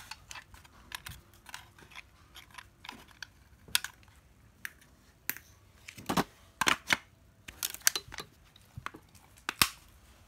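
Scattered light clicks and taps of objects being handled, with a few louder knocks about six to seven seconds in and again near the end.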